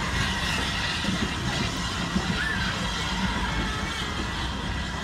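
Railway passenger coaches of a steam-hauled train rolling past close by: a steady low rumble of wheels on the rails.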